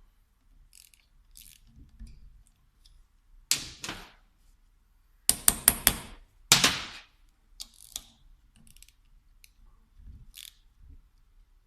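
Metal hand tools and injection-pump parts handled on a workbench: a sharp knock about three and a half seconds in, a quick run of about five clicks, then another loud knock, with light ticks in between.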